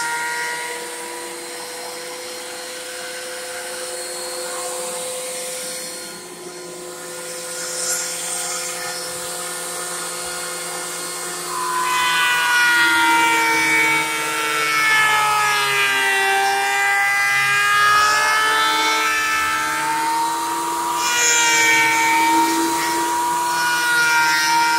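Ridgid thickness planer running, its motor and cutterhead whining steadily while planing thick old boards. About twelve seconds in the whine grows louder, and its pitch sags and recovers under the load of the cut.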